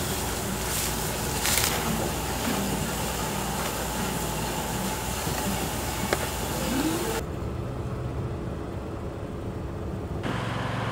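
Steady kitchen background noise, an even hiss over a low hum. About seven seconds in it cuts abruptly to a quieter, duller low rumble of outdoor street ambience.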